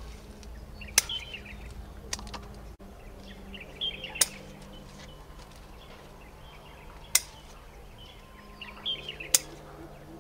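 Four sharp snaps a few seconds apart as guava stems are severed from the branch during picking, with short chirps near them and a faint steady low hum.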